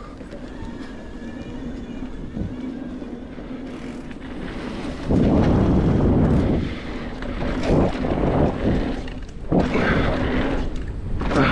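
Mountain bike riding a jump line, heard as wind rushing and buffeting over the camera microphone along with tyre and bike noise. Loud gusts of wind noise come in from about five seconds in and again several times near the end.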